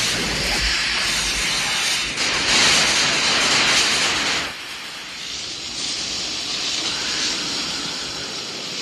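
Loud steady hissing noise that drops in level suddenly about four and a half seconds in, then fades slowly.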